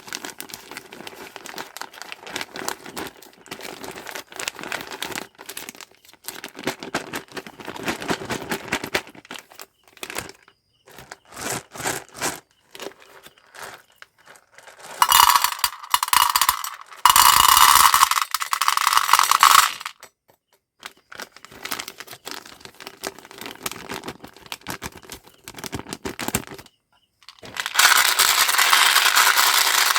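Candy packaging being unwrapped and handled by hand: steady crinkling and rustling with many small clicks, and two louder stretches of rustling, one of several seconds around the middle and one near the end.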